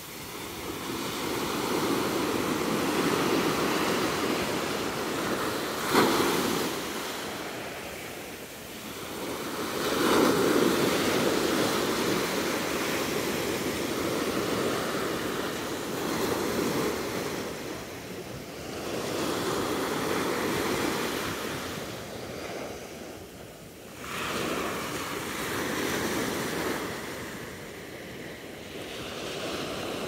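Small ocean waves breaking and washing up the sand, swelling and fading in surges every several seconds as each wave runs in and draws back. A brief sharp knock about six seconds in.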